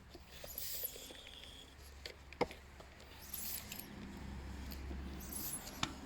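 Bicycle tubeless tyre being inflated with a standard floor pump: irregular hissing, squeaky pump strokes, with two sharp clicks, one in the middle and one near the end.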